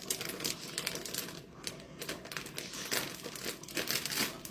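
A packet of Himalayan pink salt crinkling irregularly as it is handled and worked open; the packet is hard to open.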